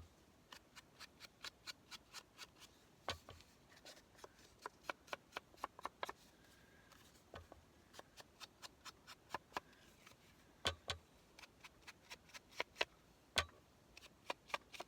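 Quick small clicks and taps of craft tools and paper being handled on a tabletop, several a second and irregular, with a few louder knocks.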